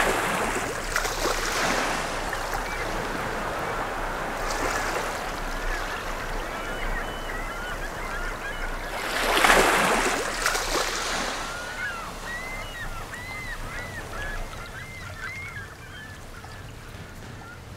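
Waves surging and washing on a shore, the biggest swell about half-way through, with a flock of birds giving many short chirping cries through the second half.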